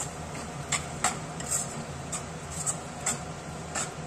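Metal spatula scraping and knocking against a non-stick kadai while stirring and roasting a thick tomato-cashew masala, in irregular strokes about two a second.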